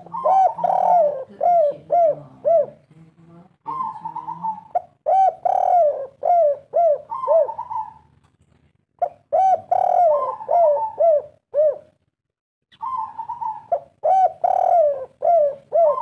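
Spotted dove cooing in four bouts of its 'kuk 3' song, each a run of short hooting coos, with pauses of about a second between them.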